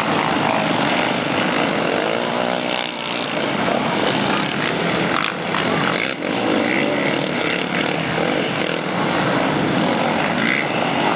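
A pack of racing quad bikes revving hard together, many engine notes overlapping and rising and falling as the riders work the throttles.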